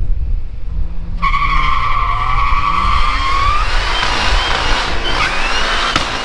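2011 Cadillac CTS-V's supercharged 6.2-litre V8 accelerating hard, its pitch climbing, while the rear tyres break loose and squeal from about a second in. The squeal wavers and grows rougher as the wheelspin goes on.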